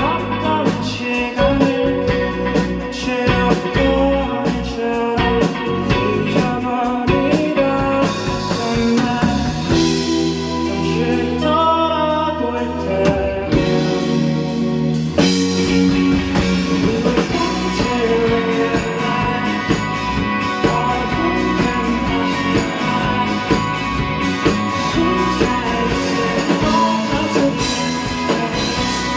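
Rock band playing live: drums, electric guitars and bass, with singing. About ten seconds in the drums drop out for a few seconds under held chords, then the full band comes back in.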